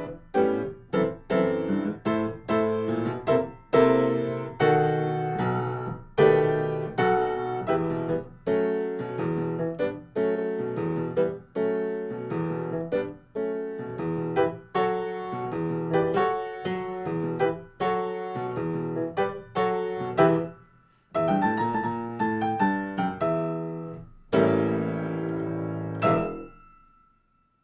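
Upright piano played solo, the end of a service prelude: a stream of chords and melody notes, a brief break near the end, then a final chord that rings out and fades away.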